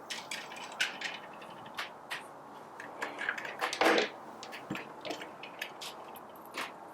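Scattered light clicks and taps of hand work on a Baratza Forte coffee grinder as small screws and a screwdriver are handled at its front bracket, with one louder knock about four seconds in.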